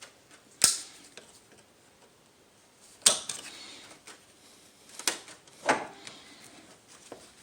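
Sharp metallic clicks and clacks from a car hood latch being handled while its release cable is worked free, four louder ones spaced a second or two apart, with a few fainter ticks.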